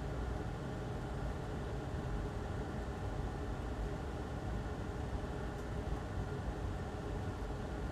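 Steady machine hum with a low hiss, unchanging throughout.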